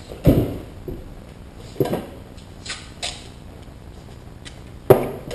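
A few scattered knocks and rustles, with a sharp click and a louder clatter near the end.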